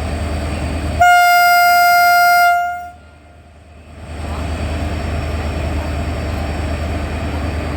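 WAP4 electric locomotive's air horn giving one loud, steady blast about a second in that lasts about two seconds: the departure honk as the train pulls out. A steady rumble and hum runs before and after it.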